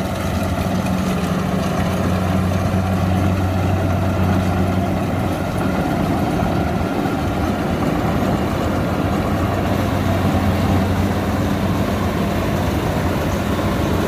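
Kubota DC-60 combine harvester's diesel engine running steadily as the machine cuts and threshes lodged, waterlogged rice: a low engine hum over the broad noise of the working machinery.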